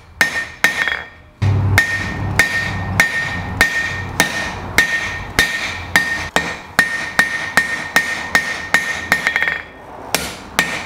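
Blacksmith's hand hammer striking a red-hot 4140 steel bar on a Cliff Carroll anvil, about two blows a second, each with a short metallic ring from the anvil, drawing out a square taper. A brief pause comes about a second in, and a quick run of light taps near the end.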